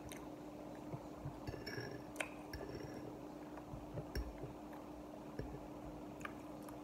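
Metal fork clinking and scraping on a ceramic plate: a few light, scattered clinks, two of them with a short ringing tone in the first three seconds, over a steady low background hum.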